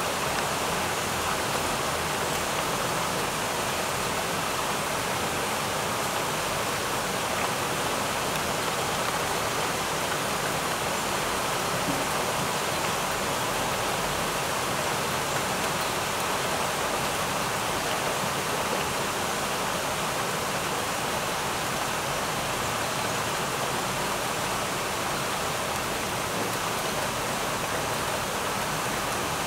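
Heavy downpour: a steady, even hiss of rain pouring onto flooded pavement.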